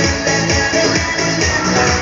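Loud upbeat dance music with a steady, driving beat, played for a bailoterapia dance-fitness session.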